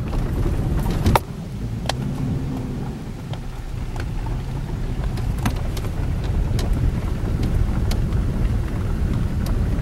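Ford Ranger pickup driving slowly over a rough, rocky dirt track, heard from inside the cab: a steady low engine and tyre rumble with scattered knocks and rattles as it goes over bumps, a sharp knock about a second in.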